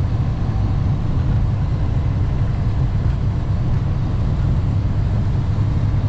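Steady in-cab drone of a Western Star semi truck's diesel engine and tyre and road noise while cruising at highway speed.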